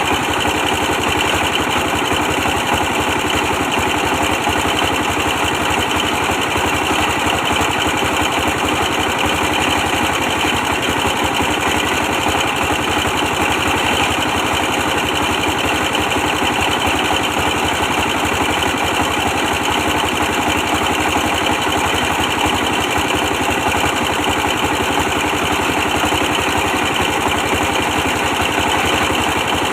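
24 hp diesel engine running steadily, driving a brick press.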